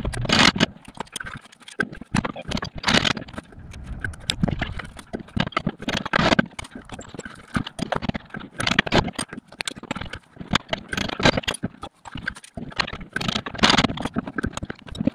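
Socket wrench on a long extension working the inner CV joint's flange bolts loose on a VW Golf Mk4 driveshaft: irregular metallic clicks, rattles and scrapes, with a louder clack about every two and a half seconds.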